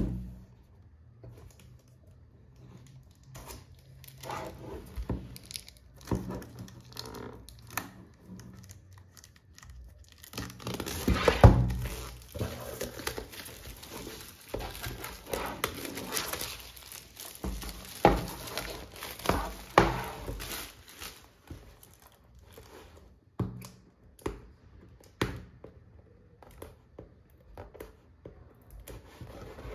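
Clear plastic wrapping being torn and stripped off a cardboard screen-protector box and crumpled, crinkling in irregular bursts that are busiest in the middle. Several sharp knocks come from the box being handled on a wooden tabletop, with a loud one at the very start.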